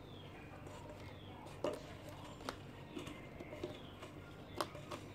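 Plastic bottles being handled, with a few sharp clicks and knocks of plastic, the loudest about a second and a half in and near the end. Short faint chirps recur in the background.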